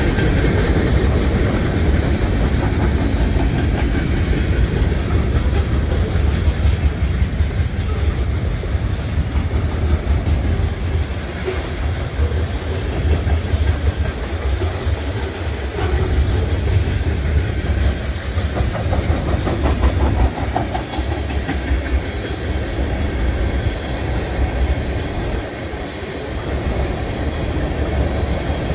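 Freight train cars rolling past: a steady rumble with wheels clicking over rail joints.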